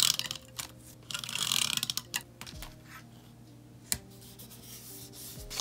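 Paper being handled while a journal page is decorated: a rustle of about a second near the start as the page and a sticker sheet are rubbed and shifted, then a single sharp click about four seconds in, over faint background music.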